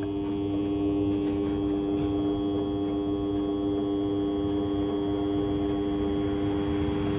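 Small bench metal lathe running with a steady motor hum, spinning a scooter clutch drum while the tool skims the drum's worn inner surface.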